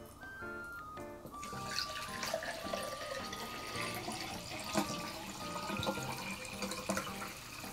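Carbonated water poured from a plastic bottle into a drinking glass, splashing steadily into the glass from about a second and a half in. Light background music plays throughout.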